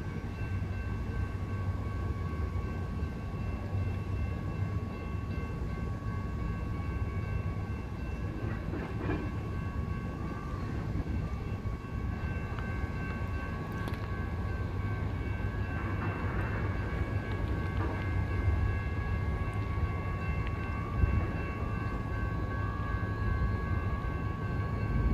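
Freight train of tank cars rolling slowly past, a steady low rumble with a steady high-pitched squeal held over it.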